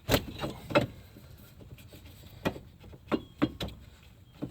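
Steel crowbar levering down on the front suspension to pop the ball joint out of the steering knuckle: a series of about seven sharp metallic knocks and clunks at uneven intervals.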